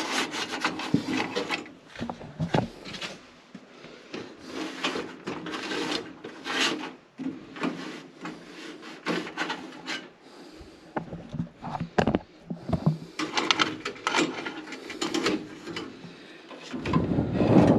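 Irregular rubbing and scraping with scattered clicks and knocks: the inside surfaces of a gas furnace being scrubbed and wiped clean by hand. A louder knock and rattle comes near the end.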